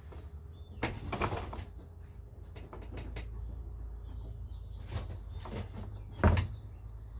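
Knocks and rattles of a wooden door and its latch being worked by hand: a few short clatters early on and near the middle, the loudest a thump about six seconds in, over a steady low hum.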